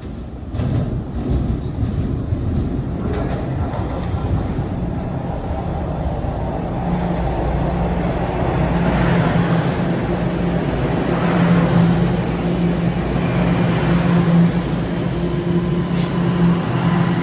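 Toronto Rocket subway train arriving at the station, its rumble building from the tunnel and growing louder as it runs in along the platform. A steady low hum sets in about halfway through, and brief high-pitched squeals come near the end as it slows.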